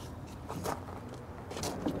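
A spin-on hydraulic filter being threaded onto its filter head by hand: faint scrapes and a few light clicks of the canister against the head, around half a second in and again near the end.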